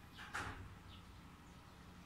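A short rustle of hands handling the wiring and park-light bulb inside a motorcycle's front fairing, once about a third of a second in, over a low steady hum.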